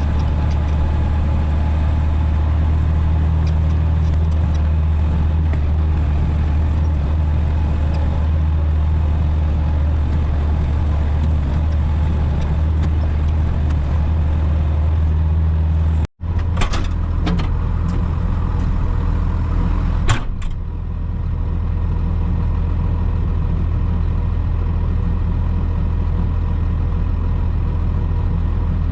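Tractor engine running steadily under load while mowing overgrown roadside vegetation. About halfway the sound drops out for an instant, followed by a few sharp knocks over the next few seconds, then the engine runs on at a slightly lower pitch.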